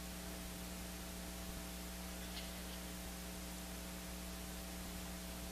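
Steady electrical mains hum, a low buzz with an even hiss behind it.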